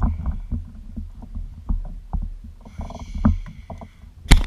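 Low rumbling with irregular knocks and clicks, a brief higher whir about three seconds in, and a sharp loud click near the end.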